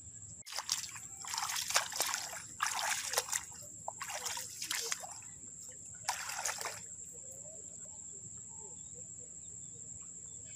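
Shallow paddy water splashing and trickling in about five short bursts as hands scoop and swish through it, then it stops.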